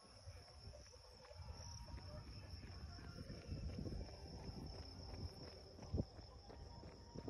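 Faint, steady high-pitched trill of crickets in the roadside vegetation, under a low rumble of phone handling and soft knocks as the runner moves; one sharper knock about six seconds in.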